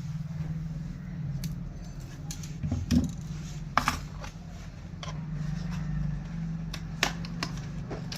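Scattered small clicks and taps of tools and parts being handled while a smartphone is opened for a battery change, over a steady low hum.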